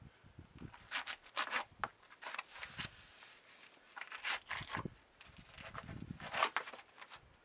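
Shoes scuffing and scraping on bare rock in a few uneven bursts, as someone scrambles over it.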